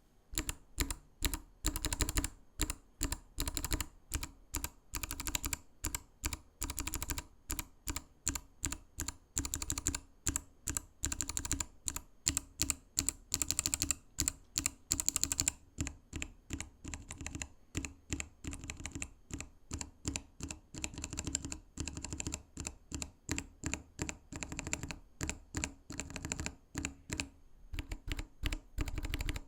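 Typing on Kailh Box mechanical keyboard switches: a dense stream of sharp key clicks in quick runs, with brief pauses between them.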